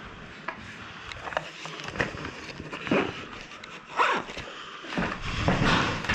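Rustling and brushing of a player's clothing and gear as he moves, a swish about every second, getting louder near the end.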